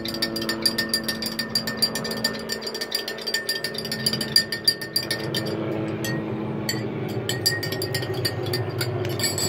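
A utensil stirring borax into hot water, clinking rapidly against the side of the container as the borax is dissolved. The clinking comes many times a second at first and thins out about halfway through.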